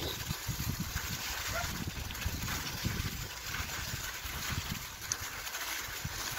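Bicycle tyres rolling through wet snow slush and mud, a steady noisy sound over an uneven low rumble.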